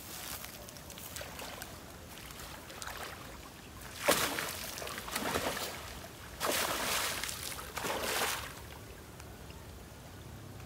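Water splashing and sloshing as a man wades in a shallow river and gropes through a cast net by hand. A sharp splash about four seconds in, then a longer stretch of splashing from about six and a half to eight seconds.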